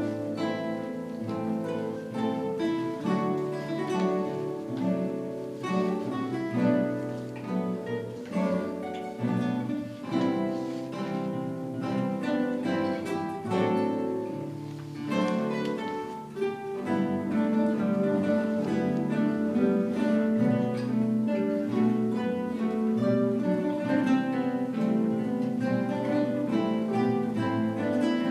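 An ensemble of acoustic guitars playing a slow, melodic piece, with plucked melody and chord parts over a bass line. It grows somewhat fuller and louder about two-thirds of the way through.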